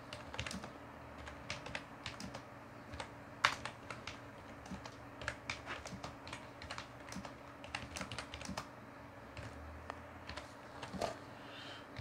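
Typing on a Logitech G213 Prodigy gaming keyboard, whose membrane keys have a mechanical feel but are not mechanical switches: irregular keystroke clicks, a few louder than the rest.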